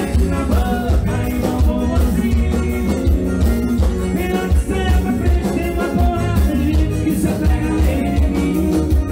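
Live band playing through a stage PA: a male singer singing into a microphone over drum kit and electric bass, with a steady bass beat.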